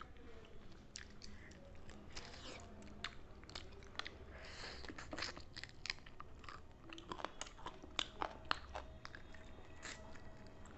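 Close-up eating sounds: someone chewing and crunching food, with many short sharp clicks scattered throughout.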